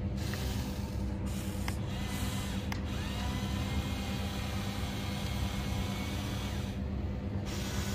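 Electric motors and plastic gearboxes of a Huina 1594 RC excavator whirring as the boom and bucket move, with a couple of short clicks. The whir stops briefly near the end.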